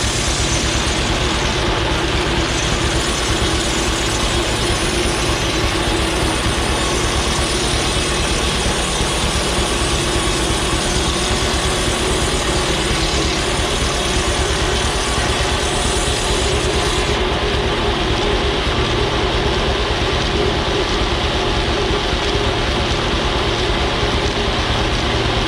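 Clapboard mill running: a circular saw on its travelling carriage cutting clapboards from a log bolt turning in the mill. A loud, steady mechanical din; the highest hiss drops away about two-thirds of the way through.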